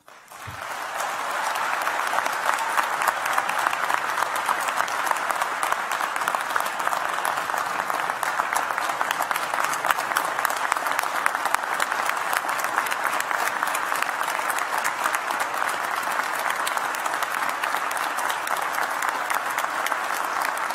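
A large audience clapping: dense, sustained applause that swells within the first second or two and carries on steadily without letup, greeting the end of a speech.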